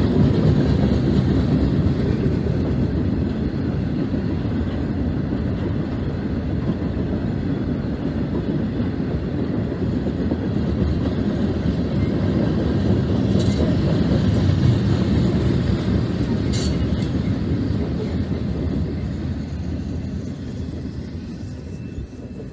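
Freight cars of a manifest train rolling past: a steady rumble of steel wheels on rail, with two brief high clinks a little past the middle. The sound fades away over the last few seconds as the end of the train goes by.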